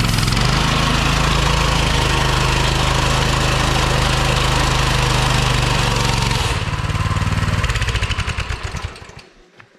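Coleman BT200X mini bike's 196cc single-cylinder engine held at high revs during a burnout, with the hiss of the rear tire spinning on the concrete floor. About six and a half seconds in the throttle is released, the tire noise stops, and the engine slows into separate firing beats and fades.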